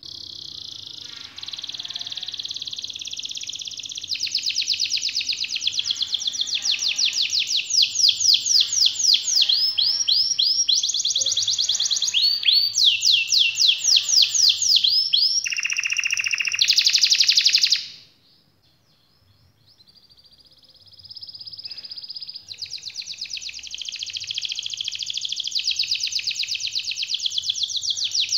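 Domestic canary singing a long rolling song of fast, high trills that change speed from one phrase to the next. The song breaks off for about two seconds about two-thirds of the way through, then starts again softly and builds back into trills.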